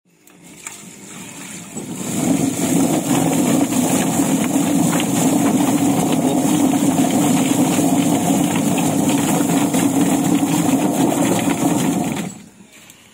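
Rotary drum chicken plucker running with a load of chickens tumbling against its rubber fingers: a steady, loud mechanical churn that builds over the first two seconds and stops about twelve seconds in.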